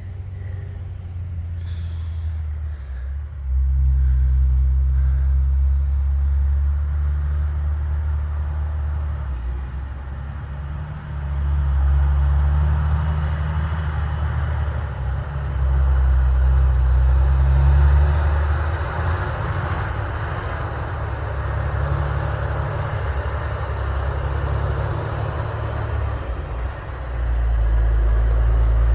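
Loaded logging truck driving past on a steep road, its diesel engine a deep rumble that steps up and down in level several times, with road noise swelling as it passes through the middle.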